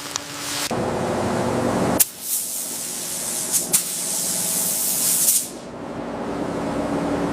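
Compressed air hissing out of a spray nozzle in long bursts, with short breaks about two seconds in and again about five and a half seconds in.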